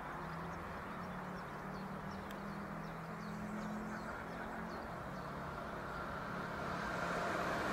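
Electric multiple-unit passenger train approaching on the double-track line, first as a low steady hum and distant rumble that grows louder over the last couple of seconds as it nears. Faint short chirps are heard above it.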